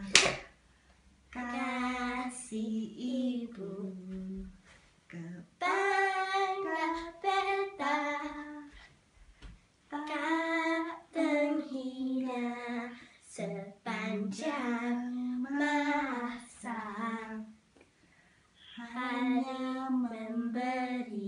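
A young girl singing unaccompanied in short phrases separated by brief pauses, with one sharp hand clap at the very start.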